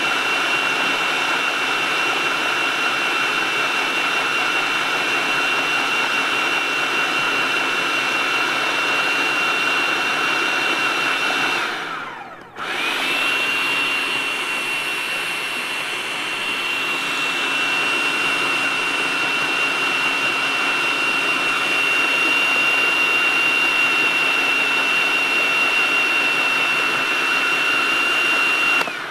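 Electric food processor motor running steadily with a high whine, puréeing hummus to a smooth paste. It winds down and starts again about twelve seconds in, then stops at the end as the hummus is done.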